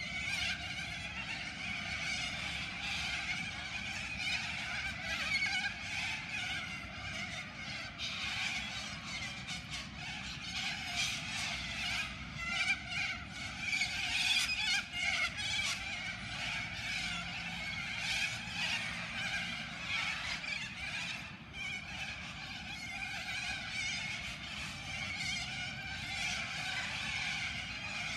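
A large flock of little corellas calling together from their roost trees: a continuous din of many overlapping calls with no pauses.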